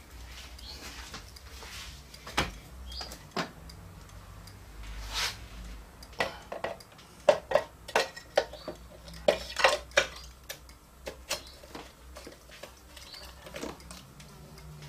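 Metal parts of a scale-model Volvo L220E wheel loader clicking and clinking as its body and cab are fitted onto the chassis by hand, with a quick run of sharp knocks near the middle.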